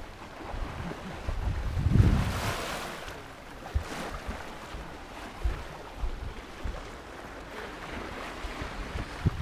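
Water rushing along the hull of a sailing yacht under way, with wind buffeting the microphone in gusts. A louder wash of water swells about two seconds in.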